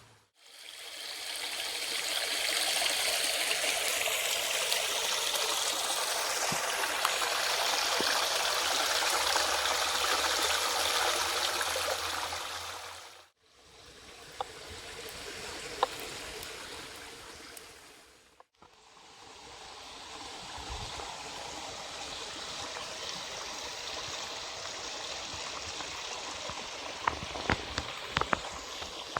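Steady rush of running water, like a forest stream, heard in three stretches that fade out and back in about 13 and 18 seconds in, with a few light clicks near the end.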